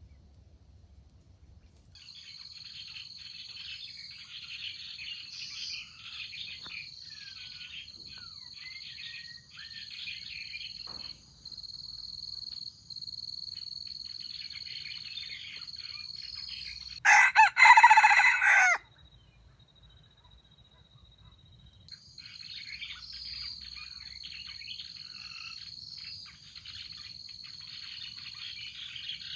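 A jungle fowl rooster crows once, loudly, about two-thirds of the way through. Behind it runs a steady, high-pitched insect drone with small birds chirping; the drone breaks off at the crow and comes back a few seconds later.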